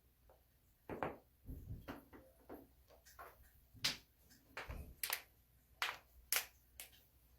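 Joints cracking: about a dozen sharp pops in quick, uneven succession, starting about a second in, some mixed with dull thumps.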